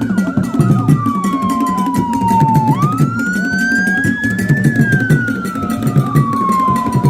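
Wailing siren, its pitch falling slowly, then rising for about two seconds and falling again, over background music with a steady beat.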